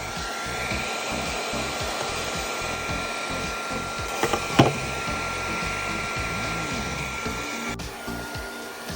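Makita 18V cordless heat gun running, its fan blowing steadily with a high whine. A few sharp clicks sound about four and a half seconds in, and the blower's sound changes near the end.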